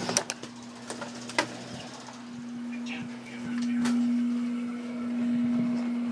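Handling noise and a few sharp clicks and knocks from a hand-held camera being carried while walking, over a steady low hum that grows louder about halfway through.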